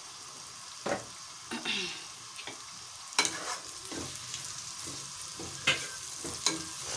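Sliced onions and whole spices sizzling in hot oil in a pot, stirred with a plastic spatula that scrapes and knocks against the pot several times, loudest about three seconds in.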